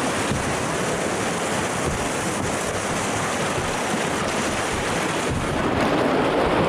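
Whitewater rapids rushing steadily around a kayak, with splashes of the paddle and wind buffeting the microphone; the water grows a little louder near the end as the boat runs into rougher water.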